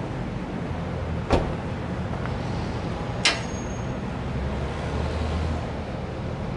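A pickup's rear passenger door shuts with a short knock about a second in. About two seconds later the fuel filler flap clicks, all over a steady low hum.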